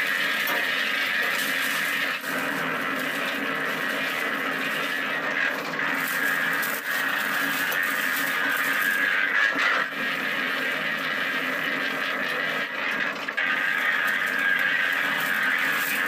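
Tilting-drum concrete mixer running steadily, its drum turning with a high-pitched squeal over a low mechanical hum.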